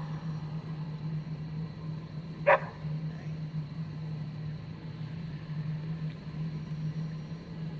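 A steady low hum, the unexplained strange sound being recorded, with a single short bark about two and a half seconds in.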